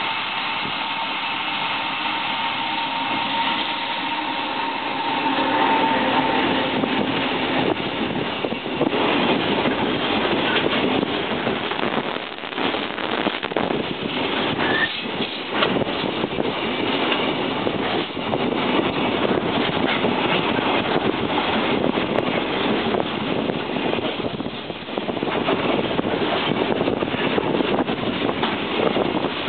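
Freight train passing close by: an EF200 electric locomotive with a steady tone in roughly the first six seconds, then a long string of container wagons rolling past with a continuous clatter of wheels on rail.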